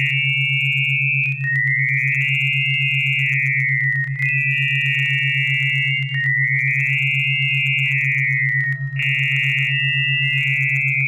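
Synthesized electronic tones: a low hum pulsing rapidly and steadily underneath, and a high whistling tone above that steps and glides between two pitches, breaking off briefly a few times. It is the experiment's test audio, from which a word is to be visualised.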